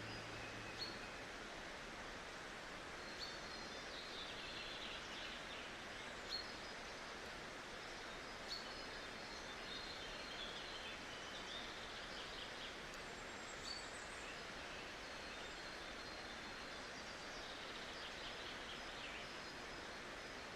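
Faint outdoor ambience: a steady, even hiss, with short high bird chirps every few seconds.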